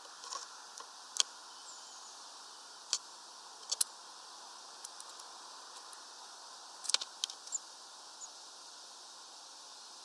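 Scattered sharp taps and clicks of a small bird moving and pecking on the wooden perches of a balcony feeder, heard about six times, over a steady hiss. There are a couple of faint, short high peeps near the end.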